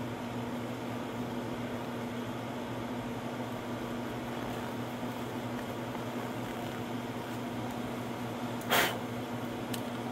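Steady low hum of a mains-powered motor running. About nine seconds in there is a short, louder hiss, and a faint click follows just before the end.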